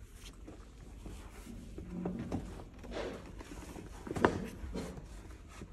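Rustling and handling of a jacket and a tote bag, with scattered light knocks; one sharp knock about four seconds in is the loudest.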